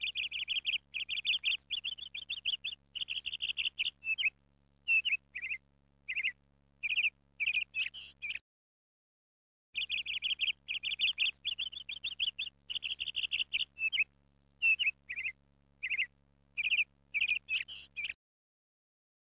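Small bird chirping in quick runs of short, high tweets over a faint steady hum. The sound cuts out to dead silence twice, and the same stretch of chirping seems to play over again after the gap, as a looped birdsong track.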